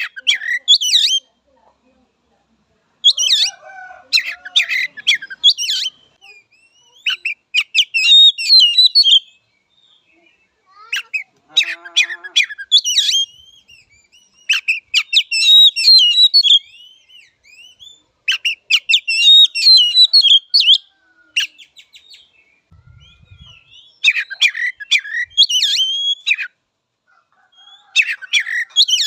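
Oriental magpie-robin singing in repeated bursts of fast, varied whistles and chattering notes, each phrase one to three seconds long, with short pauses between.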